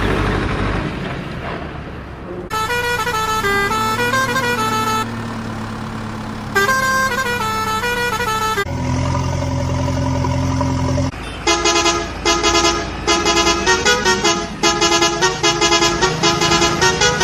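Electronic toy-vehicle sound effects. A low engine rumble gives way to short electronic tunes, then a steady horn blast, then a fast run of pulsing beeps.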